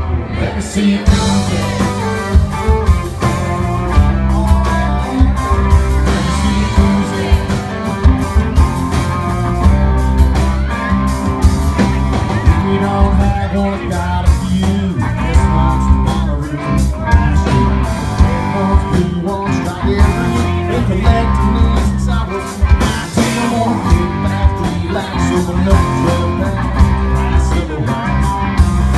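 Live band playing a song: a male lead vocal over electric and acoustic guitars and drums.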